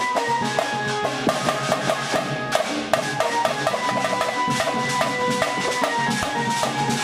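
Hyderabadi marfa band playing a loud, fast drum rhythm, with a melody in long held notes running over the beat.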